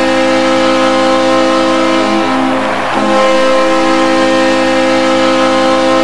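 Hockey arena goal horn blaring one long, loud chord. Its lower notes shift about two seconds in and again about a second later.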